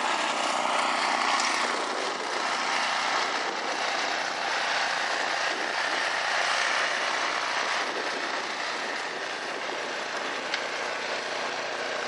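Walk-behind snowblower running steadily as it throws snow out of its chute.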